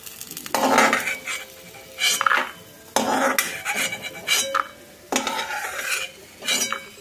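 Metal spatula scraping around the inside of a metal kadai as fried peanuts are scooped out, in about four separate scoops with pauses between.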